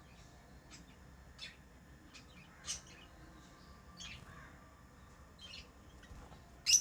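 Pet lovebirds chirping: a string of short, high chirps at irregular intervals, the loudest one near the end.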